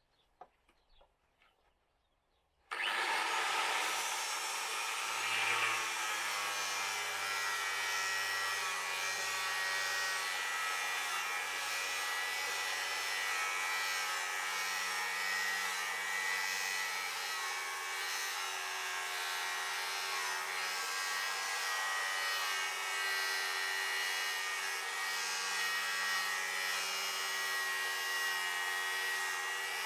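A power saw starts suddenly about three seconds in and runs steadily, with a steady whine over the cutting noise.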